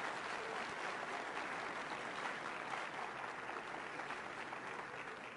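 Audience applauding, a dense patter of many hands that dies down near the end.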